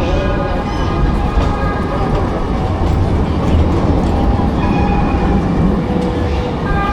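Loud, steady low rumble of a vehicle, with thin high tones that come and go above it.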